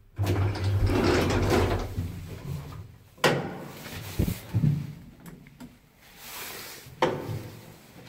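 Lift doors at a landing: the cabin's automatic doors slide open with a motor hum over the first two seconds, then the heavy metal landing swing door is pushed open, giving sharp metallic clunks a few seconds in and another bang near the end.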